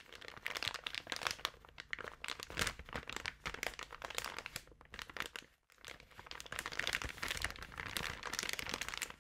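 Irregular crackling and crunching clicks, with a brief break about five and a half seconds in.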